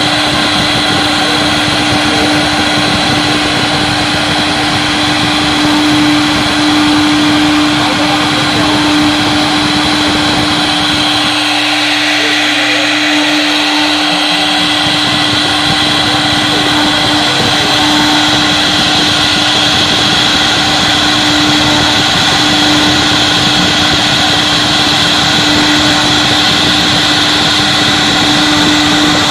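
CNC wood router's spindle running steadily with a constant whine while the bit cuts wood. About 11 seconds in, the low cutting noise drops away for roughly three seconds while the whine carries on, then returns.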